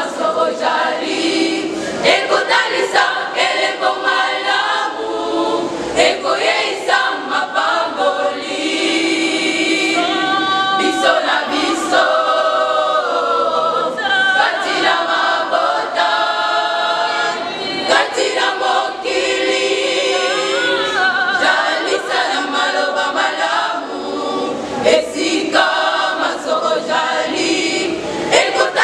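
Church choir singing a gospel song, many voices together without a pause.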